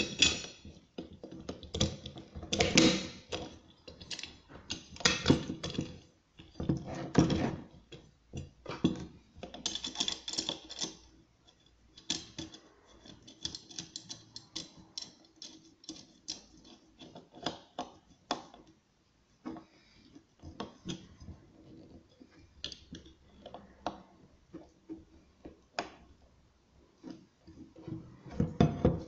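Irregular clicks, knocks and rattles of a metal wheel guard and the plastic body of a Narex EBU 125-6 angle grinder being handled and fitted together on a wooden table. The louder clusters of knocks fall in the first ten seconds, with lighter taps and clicks after.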